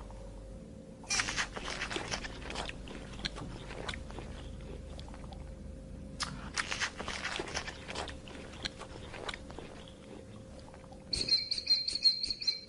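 An animal crunching and chewing food in two spells of crackly bites, then a quick run of high-pitched squeaks near the end.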